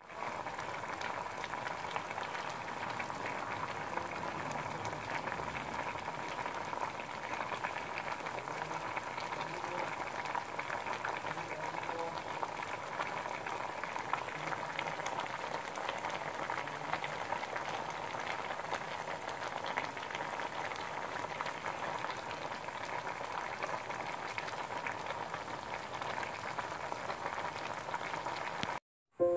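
Water boiling in a metal pot of corn on the cob, squash and peanuts in their shells: a steady bubbling crackle and hiss with a thin steady tone underneath. It cuts off suddenly just before the end.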